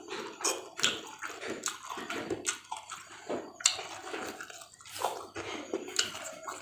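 Close-miked eating: wet chewing with irregular crunches, several a second.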